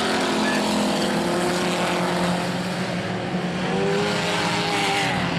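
Several stock-car engines racing on a dirt oval, a dense pack sound at full throttle. Engine notes rise and fall in pitch in the second half as cars pass.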